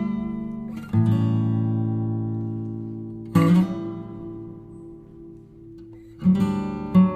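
Slow acoustic guitar music: strummed chords left to ring and fade, with a quicker run of strums near the end.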